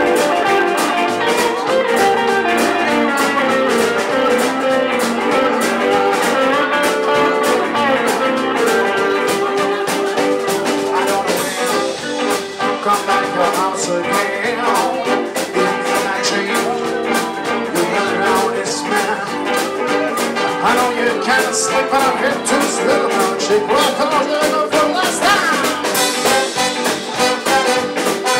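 Live band playing an instrumental passage of a mellow swing and rock-and-roll number, with no vocals: Hammond organ, electric guitars and drum kit.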